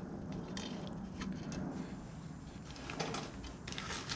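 Quiet hand-handling noises: light scattered clicks and taps of small parts being worked inside an aluminium PowerGlide transmission case, then a plastic bag rustling near the end, over a low steady hum.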